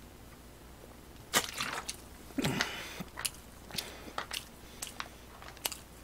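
A man gulping soda from a plastic bottle: irregular swallows and sharp little clicks, starting about a second and a half in.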